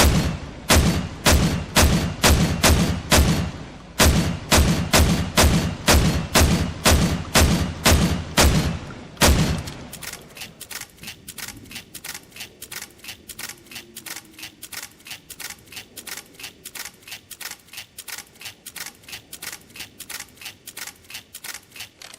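Gunshot sound effects fired in rapid strings: heavy shots at about three a second, a brief pause around three and a half seconds in, and a second heavy string to about nine seconds. Then a quieter, sharper run of shots at about four a second.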